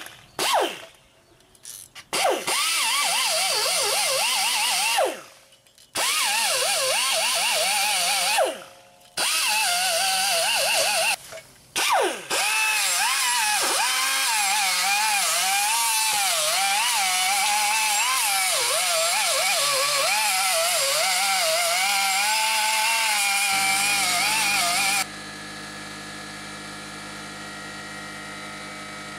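Angle die grinder with a bristle rust-removal disc whining at high speed, scrubbing surface rust off a wheel hub face. Its pitch wavers up and down as it is pressed onto the metal, and it stops and restarts three times. Near the end it stops, and a quieter steady hum carries on.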